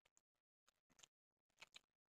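Near silence broken by faint, scattered clicks of eating by hand: chewing, and fingers working through fried rice and chicken on china plates, busiest about one and a half seconds in.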